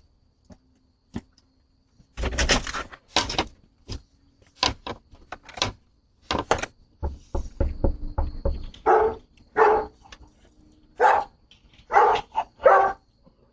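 A dog barking repeatedly, in irregular runs of short, sharp barks.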